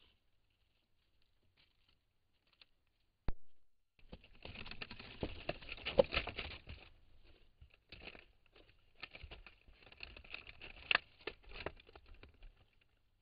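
Fox cub rustling and scrabbling among a crinkly sheet and dry leaves, in two spells of crackling and scratching with scattered sharp ticks. A single sharp click comes about three seconds in.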